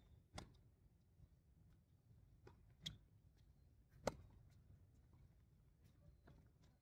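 Near silence broken by a few faint, sharp tennis-ball knocks from ball bounces and racket strikes on a hard court. One knock about three seconds in and the loudest one about four seconds in stand out.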